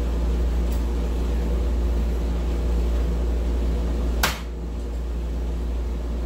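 A steady low hum runs throughout. About four seconds in comes a single sharp click as a thrown soft-tip dart strikes the electronic dartboard.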